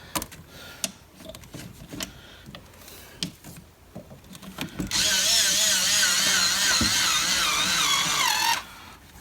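Scattered clicks and clanks of tools being handled, then about five seconds in a cordless power tool spins for about three and a half seconds with a wavering whine and stops abruptly.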